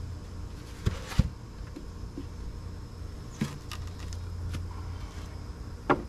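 Wooden beehive boxes knocking as they are handled and set down: four sharp wooden knocks, the loudest about a second in and another just before the end, over a steady low hum of honeybees around the hive.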